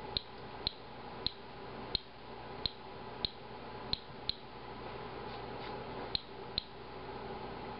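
Inspector Alert Geiger counter clicking at random intervals, roughly once a second. Each click is a detected radiation count as the monitor goes on counting after its 10-minute average.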